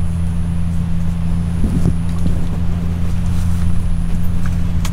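A steady low mechanical hum from an unseen engine or motor, one even pitch with no rise or fall. There is a single sharp click just before the end.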